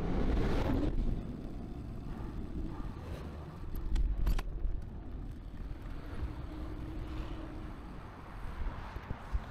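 Riding noise from a bakfiets cargo bike: a steady low rumble of wind on the microphone and tyres on pavement. About four seconds in, as it crosses rough, cracked pavement, it gets louder and two sharp knocks ring out.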